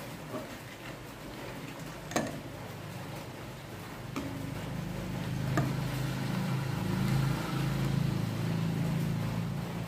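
Steel ladle stirring hot milk and sugar in a large steel pot, knocking sharply against the pot three times. A low rumble swells from about halfway through and becomes the loudest sound.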